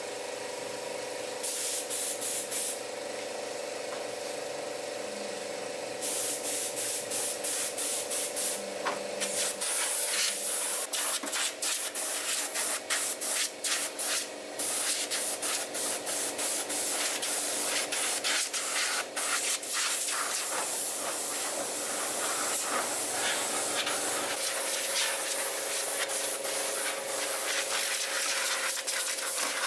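Hissing spray in many quick on-off bursts, over a steady hum.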